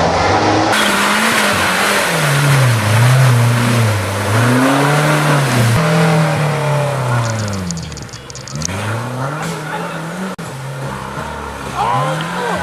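Off-road vehicle's engine revving up and down again and again under load, its pitch rising and falling several times over a steady rushing noise. It eases off briefly about eight seconds in.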